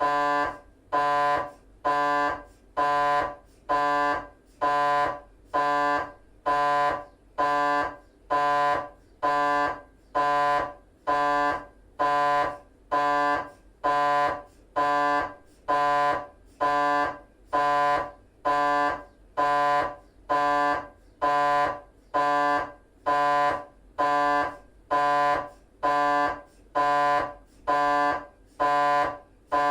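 GE 3-tesla MRI scanner's gradient coils running a T1 axial 3D FSPGR sequence: a loud buzzing tone pulsed about once a second, each burst roughly half a second long, separated by short near-quiet gaps.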